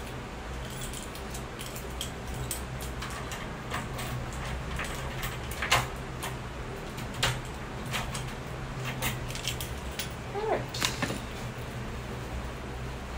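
Keys jangling and a door lock clicking as a wooden door is locked with a key, with scattered knocks and clicks of handling over a steady low hum. A short rising squeak about ten seconds in.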